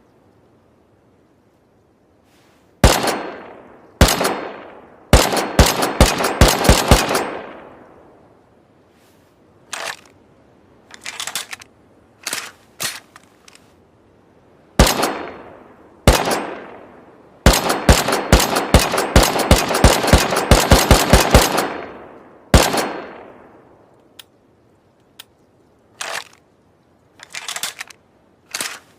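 Homemade automatic-rifle sound effect: sharp gunshot-like bangs, some single and two in rapid bursts of about four to five a second, each with a trailing echo. Fainter clicks and rattles come between the volleys and near the end.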